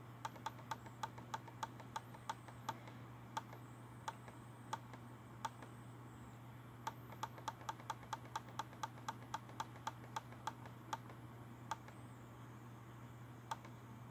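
Computer mouse button clicking in quick runs of about five clicks a second, with sparser single clicks between the runs, over a faint steady low hum.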